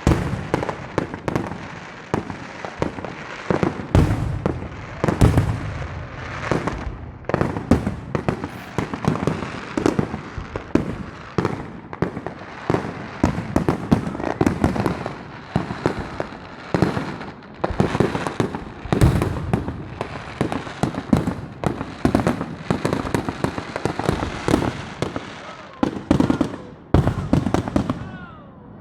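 Fireworks going off in a dense, irregular barrage: many sharp bangs and crackles a second, with occasional louder booms.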